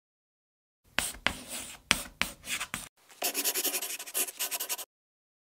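Chalk writing on a board as a title sound effect. A few sharp taps and strokes come from about a second in. Then from about three seconds in there is a second and a half of quick, even, scratchy scribbling that cuts off suddenly.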